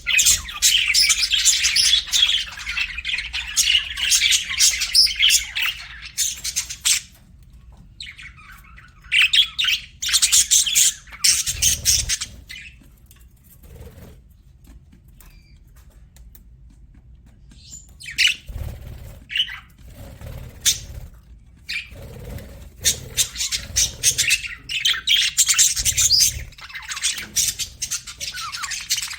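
Pet budgerigars chirping and chattering in fast, high-pitched bursts. The chatter is dense at first, thins out to a quiet stretch in the middle, then picks up again into steady chattering near the end.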